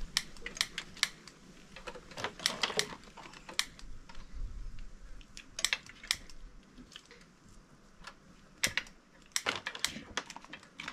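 Marron (freshwater crayfish) shells being cracked and pulled apart by hand to peel out the tail meat: a run of irregular sharp clicks and crackles, some in quick clusters.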